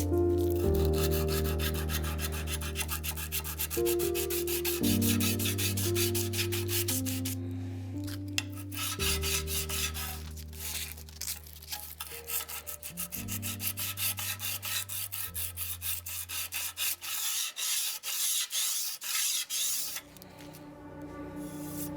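Hand sanding of a 5160 steel sword blade with sandpaper: quick, repeated rubbing strokes that stop about twenty seconds in. Background music with slow, held chords plays underneath.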